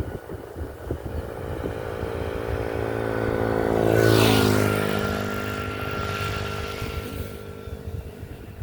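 A motor vehicle drives past. Its engine grows louder to a peak about four seconds in, drops slightly in pitch as it goes by, and then fades. Wind buffets the microphone in the first second.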